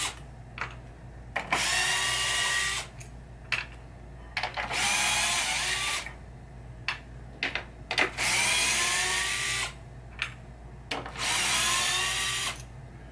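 DeWalt cordless electric screwdriver running in four short bursts, its motor whine rising in pitch as it spins up each time, backing screws out of a wooden pinball playfield. Small clicks and taps come between the runs.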